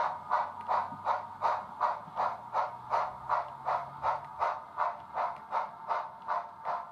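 Synthesised steam-locomotive chuffing from the Bachmann value DCC sound decoder in a 00 gauge Baldwin 2-8-0 model, a steady beat of just under three chuffs a second as the train runs. A faint low hum underneath stops about four seconds in.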